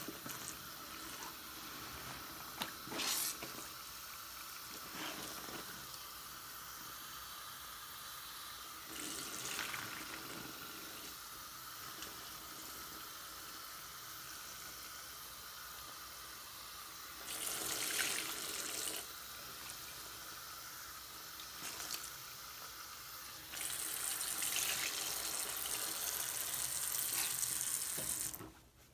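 Bathroom sink tap running into soapy water while a foam sponge is scrubbed and squeezed in the suds, with several louder stretches of squelching and splashing. The running water stops suddenly near the end.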